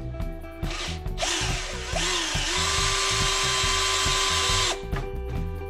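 An electric power tool such as a drill runs for about three and a half seconds. Its motor pitch dips twice, then holds steady until it cuts off. Background music with a steady beat plays throughout.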